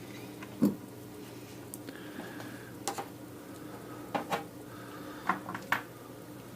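Several light clicks and taps of small tools and parts being handled on a workbench, scattered singly and in quick pairs over a faint steady hum.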